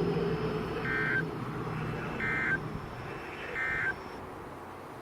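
NOAA Weather Radio's SAME End-of-Message code: three short, buzzy digital data bursts about a second and a half apart, closing the Required Weekly Test, heard off a weather radio receiver over a low hiss.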